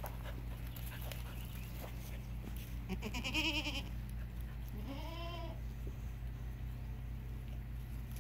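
A goat bleating twice, about three and five seconds in: two short quavering calls, the first louder.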